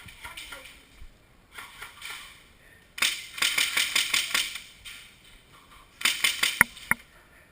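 Airsoft gun firing rapid strings of shots: a run of about a second and a half beginning three seconds in, then a shorter string of four or five shots about six seconds in.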